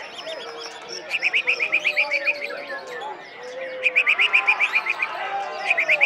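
White-rumped shama singing three bursts of fast, evenly repeated high notes, about ten a second, each burst lasting about a second. Softer calls of other birds sound underneath.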